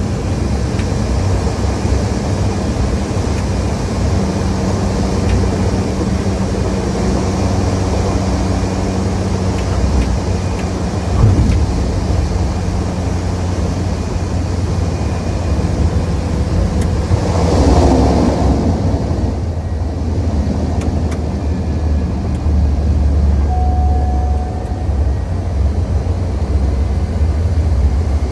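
Cessna 208 Grand Caravan's PT6A turboprop engine and propeller, a steady drone inside the cockpit during landing. A single thump comes about a third of the way in, and a swell of rushing noise a little past the middle.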